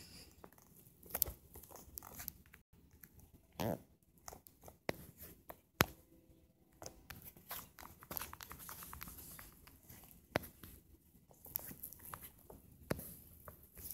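Faint, irregular handling noise: scattered taps, clicks and short rustles, with one sharper click about six seconds in.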